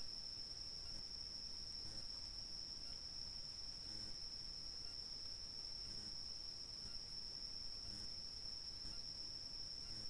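Night insects trilling in one steady, unbroken high-pitched tone, with a few faint soft ticks now and then.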